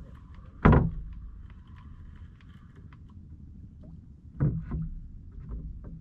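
Knocks and thumps on a small wooden fishing boat over a low rumble of water and wind. A sharp loud knock comes about a second in, and two softer thumps follow close together near the end. A faint steady whine fades out about halfway.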